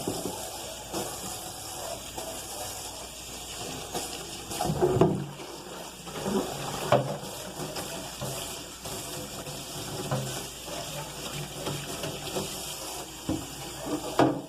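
Water running from a tap into a sink, with scattered knocks and clatter, the loudest about five and seven seconds in.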